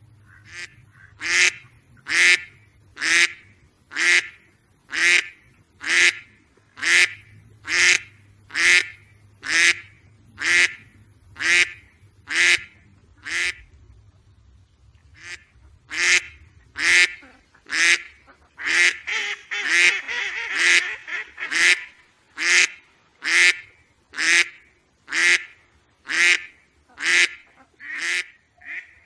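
A duck quacking over and over at an even pace, a little under one quack a second, with a brief pause about halfway and a rougher, busier stretch of calling a few seconds later.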